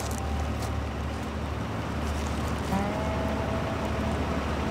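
Distant din of a huge flock of geese calling, an even wash of sound, over the steady low hum of an idling pickup truck engine.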